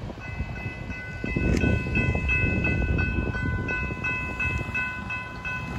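Railroad grade-crossing bell ringing steadily at about three strikes a second, over the low rumble of a passing freight train.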